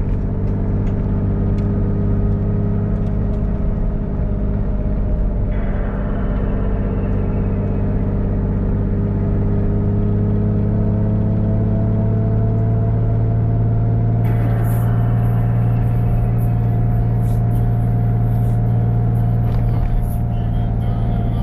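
Car engine running steadily with a low, even drone, its pitch creeping slowly upward.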